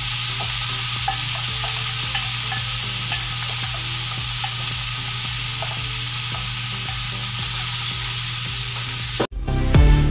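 Diced pork lungs, heart and pancreas sizzling steadily as they fry in hot oil in a pan, with faint scattered pops. Near the end the sizzle cuts off suddenly and music starts.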